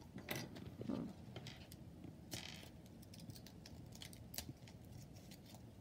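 Small plastic Lego pieces clicking and tapping as they are handled and pressed together, with a couple of short rustles.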